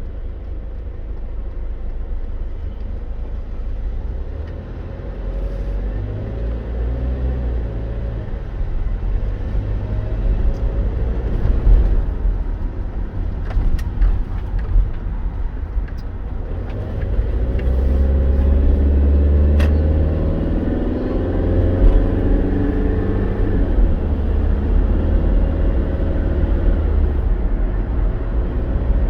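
Car driving, with a steady deep rumble of road and engine noise. Past the middle the engine note rises in pitch as the car speeds up.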